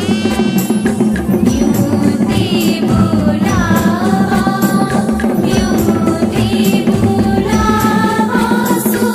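Garhwali mangal geet, a traditional wedding folk song: a woman singing a winding melody over steady drumming.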